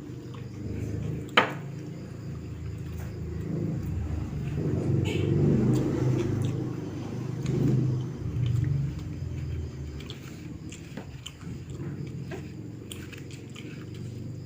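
A person chewing and biting food close to the microphone, with a low rumble that swells and fades. There is a sharp click about a second and a half in.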